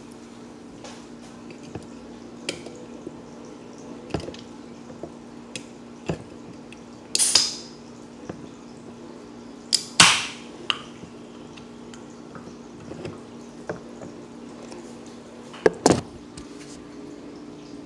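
Aluminium soda can of diet ginger ale being opened by its pull tab. A short sharp hiss of escaping carbonation comes about seven seconds in, then a louder click and fizzing hiss about ten seconds in, with light taps and clicks of fingers on the can between them.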